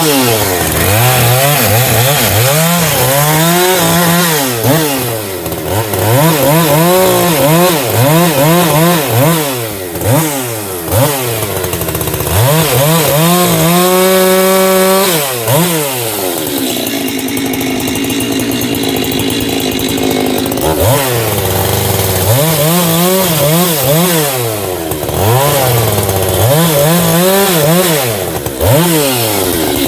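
Two-stroke chainsaw bucking firewood, its engine revving up and down again and again as the throttle is worked through the cuts. About halfway through it holds a steady full-throttle pitch for a couple of seconds, then drops to a steady idle for a few seconds before revving again.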